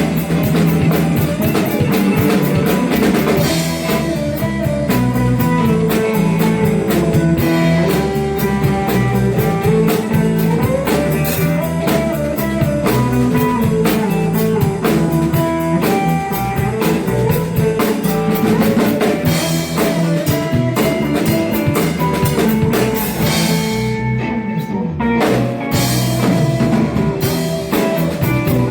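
Live blues band playing an instrumental stretch without vocals: guitar lines over a drum kit keeping a steady beat.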